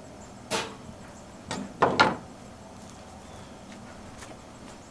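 A few short knocks and clacks: one about half a second in, two close together about two seconds in, and a faint one near the end.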